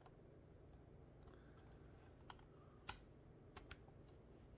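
Quiet handling of plastic Technic-style building pieces, with about five faint sharp clicks in the second half as pins and beams are pressed and fitted onto the chassis; the loudest click comes about three seconds in.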